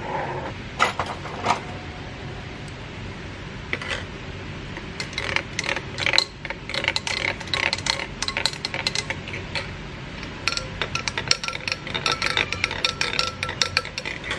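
Long metal spoons stirring juice in two glass tumblers, clinking quickly and repeatedly against the glass sides. Near the start, a couple of knocks as the glasses are set on the table.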